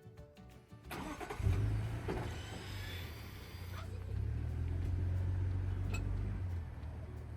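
An engine starts about a second in and runs with a steady low rumble, which swells for a few seconds and then eases a little near the end.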